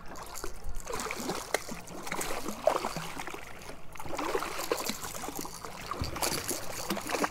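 Water splashing and sloshing against a boat's hull as a hooked small shark thrashes at the surface alongside, in short irregular splashes.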